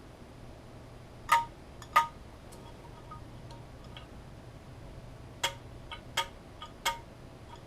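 Small metal parts clinking against each other, each clink with a brief bell-like ring. There are two sharp clinks, then a quicker cluster of four or five more about three seconds later.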